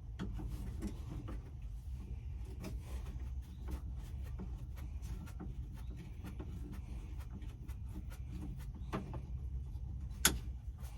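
Small scattered clicks and knocks of hands working a wiring connector and screw off a truck dash's heater/AC control panel, with one sharper click about ten seconds in, over a steady low hum.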